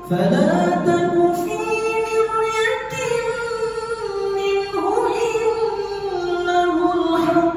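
A young man's voice reciting the Quran aloud in the melodic murattal style, in long held notes that glide from pitch to pitch.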